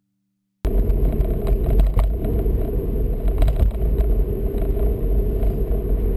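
Car road noise heard from inside the cabin: a steady low rumble of tyres and engine while driving, cutting in abruptly about half a second in, with scattered light clicks.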